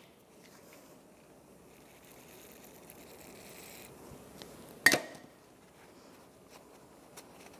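Faint rubbing of a shop rag wiping a rusty steel brake caliper bracket, over quiet room tone, with one sharp knock and a brief ring about five seconds in.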